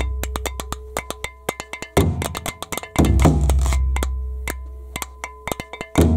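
A large dun dun bass drum with a skin head and wooden body, struck with wooden sticks: three deep, long-ringing booms about two, three and six seconds in. Between them run sharp wooden clicks, several a second, in a steady percussion pattern.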